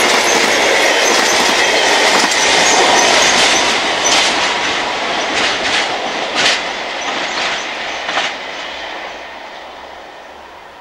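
Freight train of covered wagons hauled by a Class 66 diesel locomotive rolling away, its wheels clattering over the rail joints. A few sharp clanks come in the middle, and the sound fades steadily as the train recedes.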